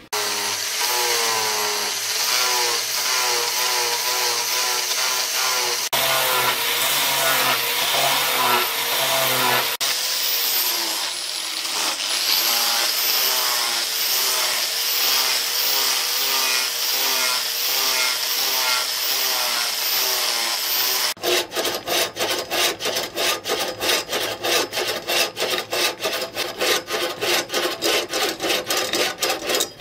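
Electric angle grinder with a sanding disc running with a high whine as it sands a wooden knife handle, the pitch wavering under load. About 21 seconds in it gives way to a hacksaw cutting through the wooden handle block in quick back-and-forth strokes, about three a second.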